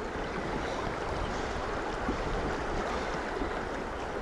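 Shallow river running over stones: a steady rush of flowing water.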